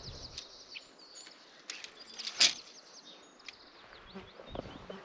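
Small birds chirping and singing in many short high notes and quick falling whistles. A short, sharp rustle about two and a half seconds in is the loudest sound, with a few soft low knocks near the end from camp gear being packed.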